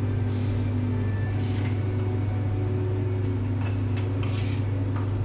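A steady low hum, with a few brief soft rustling or handling sounds over it.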